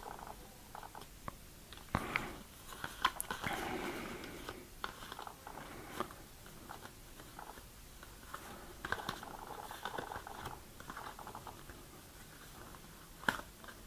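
Stiff cardboard game cards (Shadow Hunters vision cards) being fanned and slid through the hands, making faint rustling with a few sharp clicks as cards snap against each other.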